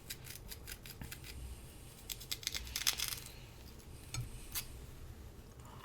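Knife cutting a Korean pear against a plate: a run of small clicks and scrapes, thickest in the first second and a half and again around two to three seconds in.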